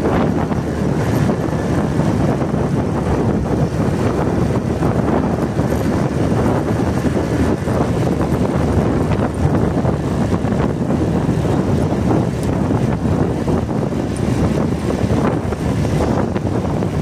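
Wind rushing over a phone's microphone on a moving motorcycle, mixed with engine and road noise; a steady, unbroken rumble.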